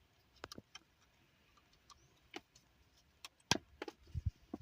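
Light, scattered clicks and taps of the gear shift knob parts on a 2004 Honda Accord being handled and fitted back together. The loudest click comes about three and a half seconds in, followed by a couple of low knocks.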